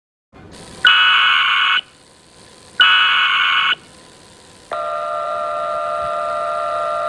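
Emergency Alert System alert tones: two harsh beeps of about a second each, then a steady two-tone attention signal that starts nearly five seconds in and holds.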